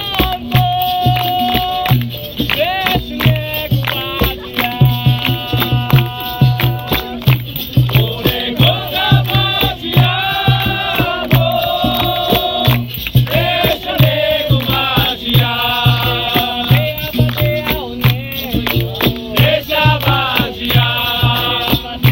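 Capoeira roda music: voices singing a chant over a steady low drum beat, with a rattle.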